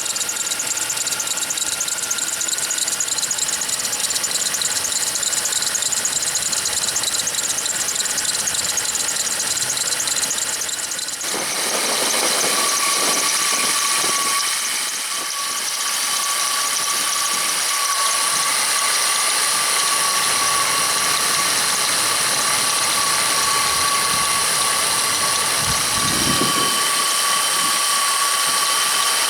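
Engine running with a steady high-pitched squeal from the drive belt and its pulleys, typical of a bad belt tensioner or belt pulley. About eleven seconds in the sound shifts and the squeal settles slightly lower in pitch.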